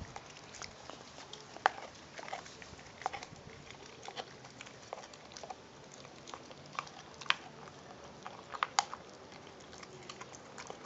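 American Pit Bull Terrier chewing raw meat on the bone: irregular wet chewing with sharp crunching cracks, a handful of them much louder than the rest.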